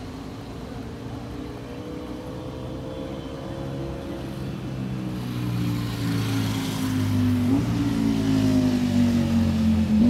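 Engine noise with several steady tones that slide slowly in pitch, growing louder over the second half, with a sudden step up in pitch about three-quarters of the way through.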